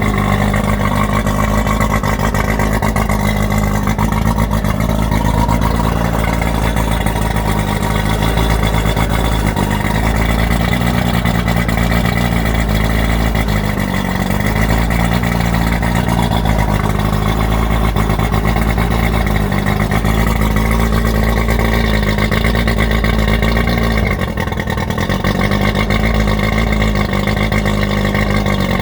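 Boat engine running steadily, its speed wavering slightly now and then, with a brief dip in loudness late on.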